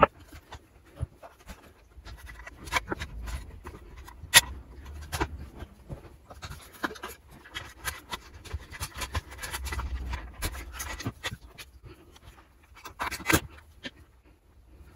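Workbench handling noise from a chainsaw being dismantled: irregular clicks, knocks and scraping of tools and plastic and metal parts, with two short spells of low rumbling.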